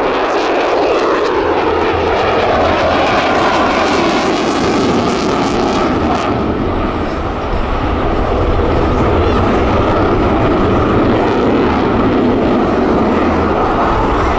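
F-35C Lightning II's Pratt & Whitney F135 jet engine roaring loud and steady as the fighter flies its display. A whine falls in pitch over the first few seconds as the jet passes.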